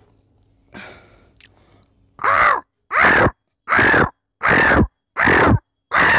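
A man imitating a crow with his voice: a run of six loud caws, evenly spaced about every three-quarters of a second and starting about two seconds in, each one arching up in pitch and falling away.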